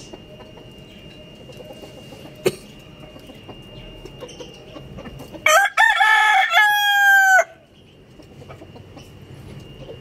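Rooster crowing once, a loud cock-a-doodle-doo that starts about five and a half seconds in and lasts about two seconds, ending on a long held note that falls slightly. A single sharp click comes earlier, about two and a half seconds in.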